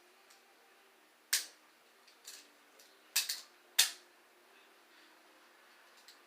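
Handcuffs being handled, giving a handful of sharp, separate clicks over the first four seconds, two of them close together near the middle.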